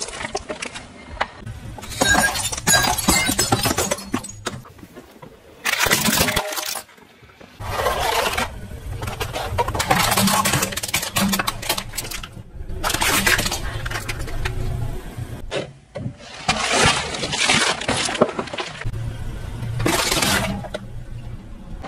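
Car tyre slowly rolling over objects and crushing them one after another: repeated crackling and crunching of breaking plastic and cardboard, in about eight separate bouts, over the low hum of the car's engine.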